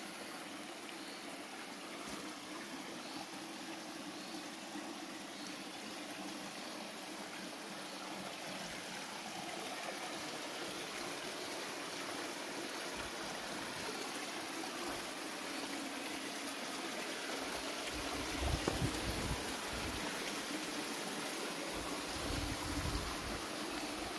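Shallow stream trickling and splashing over rocks into a still pool, a steady watery hiss. In the second half a few low rumbling bumps sound on the microphone, the strongest about three quarters of the way through.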